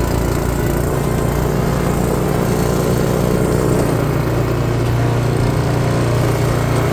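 Small gasoline engine of a snowblower running steadily while clearing snow, its note shifting slightly about four seconds in.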